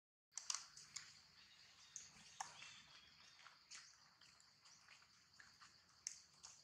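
Near silence: faint outdoor ambience with a steady high hiss and scattered soft ticks, after a brief dropout right at the start.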